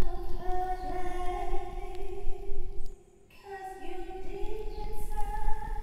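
Sound-design drone: a held, voice-like tone with overtones over a grainy low rumble. It cuts out briefly about three seconds in, then comes back with the pitch sliding up.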